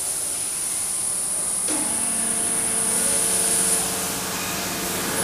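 Factory machinery running with a steady high hiss; about two seconds in, a machine starts up and settles into a steady hum with several fixed tones.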